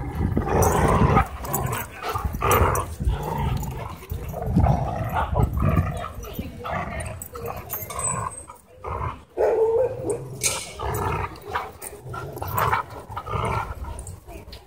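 Two dogs growling over and over as they play tug-of-war with a rope toy: play growls, not a fight.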